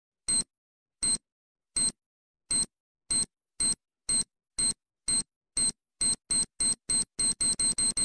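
Timer-bomb countdown sound effect: short, high electronic beeps, about one every three-quarters of a second at first, coming steadily faster until they are nearly running together at the end.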